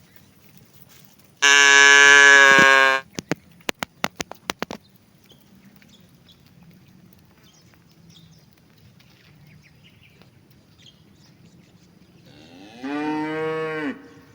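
Cattle mooing twice: a loud, steady-pitched call lasting about a second and a half, then a run of sharp clicks, then a shorter moo near the end that rises and falls in pitch.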